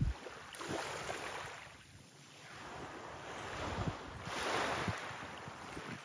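Small sea waves washing up onto a gravel beach and drawing back. The wash swells twice, loudest about four and a half seconds in.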